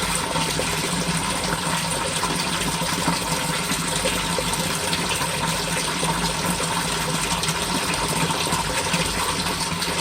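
Water gushing steadily in a French drain sump pit during rain, with a faint steady hum underneath.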